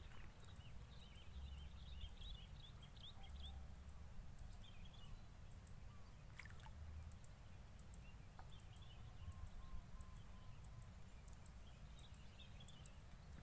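Near silence: faint outdoor ambience with a low wind rumble and scattered clusters of faint high chirps.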